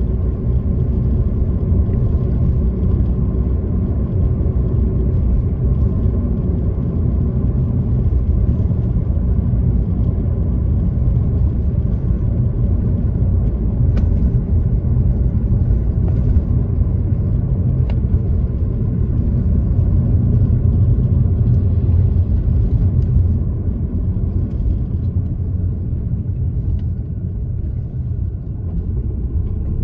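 Steady low rumble of engine and tyre noise inside a moving car, getting quieter about three-quarters of the way through as the car slows towards a junction.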